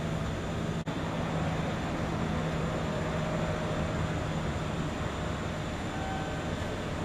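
Kintetsu electric train noise: a steady rumble with a low hum, the hum fading out about five seconds in, and a brief break in the sound just under a second in.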